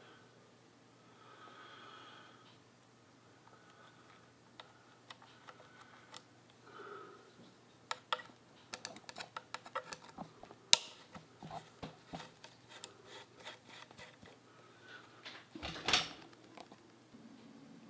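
Small steel parts of a Singer 15-91 bobbin winder clicking and tapping against the machine as it is fitted back on with a small screwdriver: scattered light metallic clicks from the middle on, one sharp click among them, and a brief scrape near the end.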